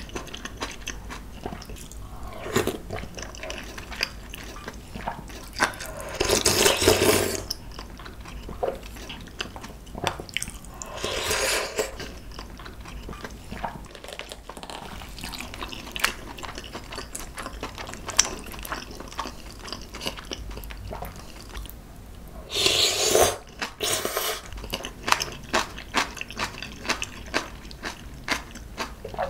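Close-miked eating sounds of a dumpling and clam noodle soup: wet chewing and mouth clicks throughout, with three longer, louder slurps about 7, 11 and 23 seconds in.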